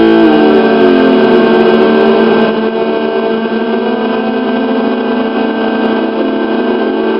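Synthesized sound effect from an avalanche oscillator circuit modulated through a Korg Monotron analog synthesizer: a loud buzzing tone full of overtones whose pitch slides down in the first second or so, then holds steady over a constant low drone, sounding somewhat like an idling engine.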